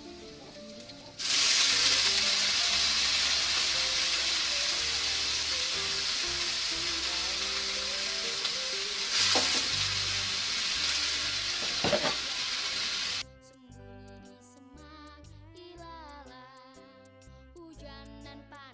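Oyster mushrooms hitting hot oil and spice paste in a wok: a loud sizzle starts about a second in and runs for about twelve seconds, with two sharp knocks near the end, then cuts off suddenly, leaving only faint background music.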